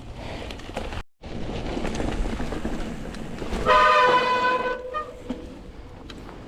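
Mountain bike disc brakes squealing: a loud, steady, high-pitched squeal lasting about a second, a little over halfway through. Before it there is a rushing noise of tyres on dirt and wind.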